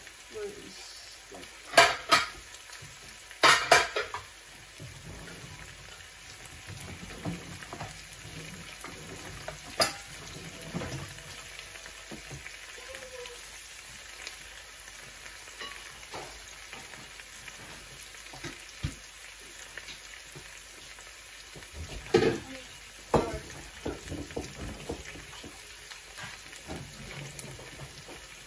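Chicken thighs, potatoes, carrots and onions sizzling steadily in a frying pan, with a few sharp knocks scattered through.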